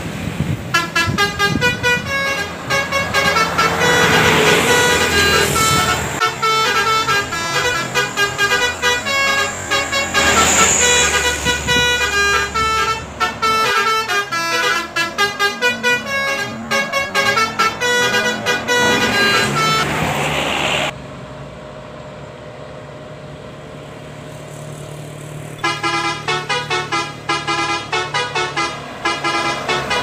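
Telolet multi-tone air horns on passing buses, playing rapid melodic runs of short notes. About two-thirds of the way through they stop for roughly five seconds, leaving bus engine and traffic noise, then start again.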